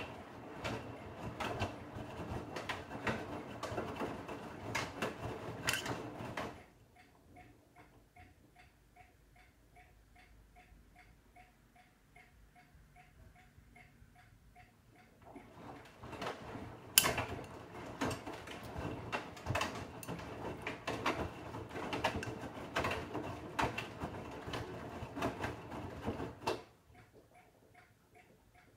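Bosch Serie 8 front-loading washing machine in its wash phase: the drum tumbles the wet laundry for about six seconds, rests for about nine, then turns again for about eleven seconds before stopping near the end. A light, fast ticking, two to three a second, runs underneath and is plain while the drum rests.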